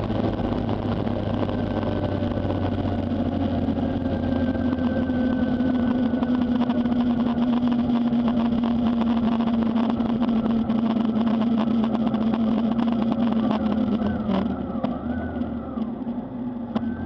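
Honda CB400 Super Bol d'Or's inline-four engine running at a steady cruise, with wind and road noise. Its note sinks slowly, and the engine eases off near the end.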